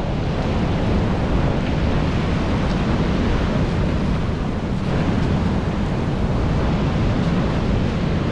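Ocean surf breaking and washing over the shore rocks, with wind buffeting the microphone: a steady, rushing noise that does not let up.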